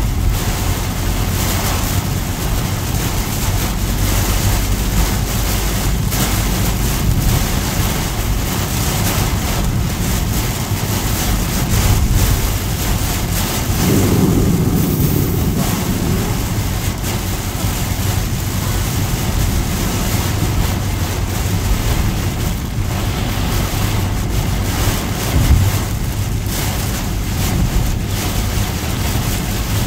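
Heavy rain falling on a car's roof and windscreen, heard inside the cabin, over steady tyre and road noise on a flooded road.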